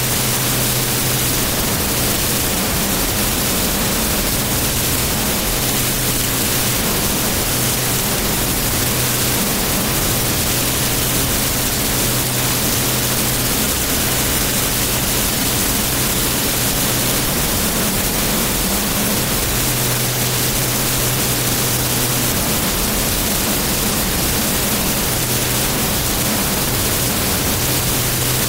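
Flash Fire jet truck's twin jet engines running steadily: a loud, even rushing noise with a low hum beneath it, holding the same level throughout.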